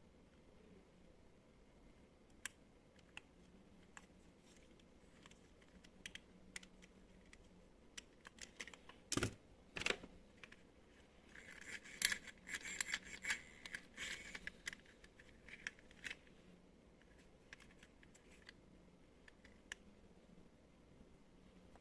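Small hard plastic parts being handled: scattered clicks and taps, a single heavier knock about nine seconds in, and a run of quick rattling clicks a few seconds later.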